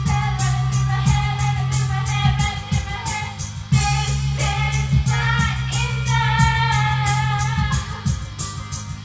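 A woman singing karaoke into a handheld microphone over a pop backing track with a steady beat and heavy bass.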